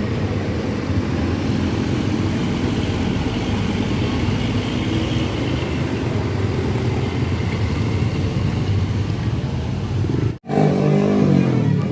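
A bus engine running with road noise, steady throughout. About ten seconds in it cuts off abruptly and background music begins.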